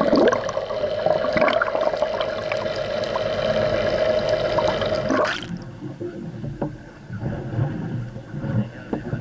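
Muffled underwater sound from a camera submerged beside a boat: a steady hum with water rushing, bubbling and clicking against the microphone. About five seconds in it cuts abruptly to quieter wind and water noise above the surface.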